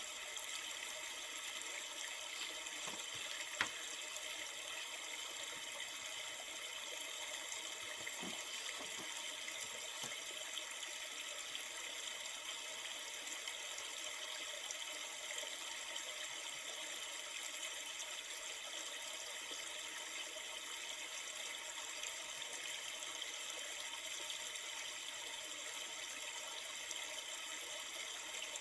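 Flowing river water, a steady rushing and babbling ambience, with one sharp click about three and a half seconds in.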